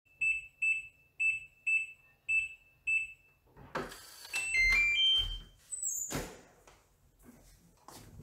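Electronic keypad door lock: six short beeps as a code is keyed in, then a short tune of stepped tones over the whirr of the bolt motor as it unlocks. A sharp click follows as the latch releases and the door opens.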